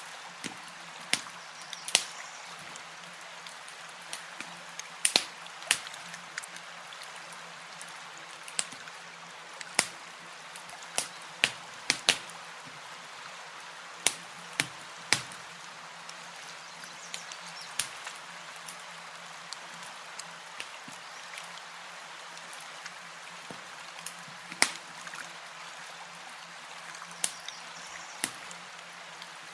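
Campfire crackling, with irregular sharp pops every second or so, some much louder than others, over a steady hiss of lapping water.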